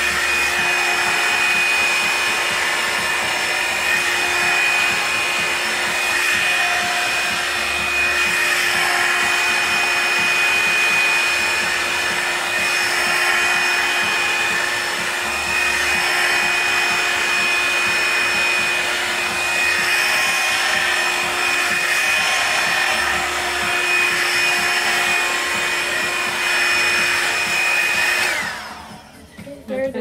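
Revlon Perfect Heat Perfectionist 2-in-1 hot-air paddle-brush dryer running steadily as it is drawn through a section of damp hair: a constant blowing hiss with a motor whine. It is switched off suddenly about two seconds before the end.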